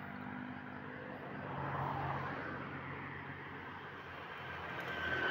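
A motor vehicle passing: a low engine rumble and road noise that swell to their loudest about two seconds in and then fade.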